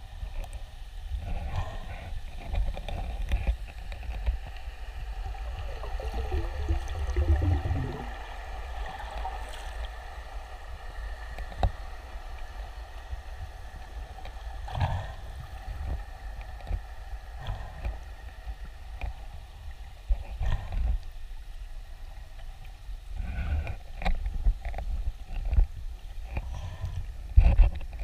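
Muffled underwater noise picked up by a GoPro in its housing: a low rumble with a faint steady hum, scattered knocks, and a tone that slides down in pitch about six seconds in.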